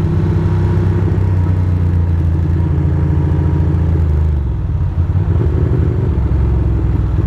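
Ducati Monster's L-twin engine running steadily under way, its note dropping a little about four seconds in.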